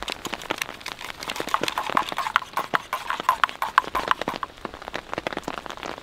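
Freezing rain pattering steadily on the tent, with a run of quick taps in the middle.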